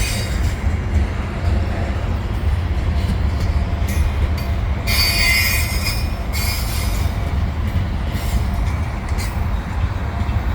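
Freight cars of a CN train rolling through a curve: a steady low rumble of steel wheels on rail. About five seconds in, a high-pitched wheel squeal lasts for about a second and a half, typical of wheel flanges grinding against the rail on a curve.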